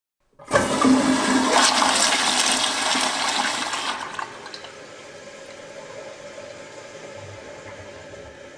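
Toilet flushing: a loud rush of water that starts suddenly about half a second in and drains away after about four seconds, then a quieter steady hiss as the tank refills.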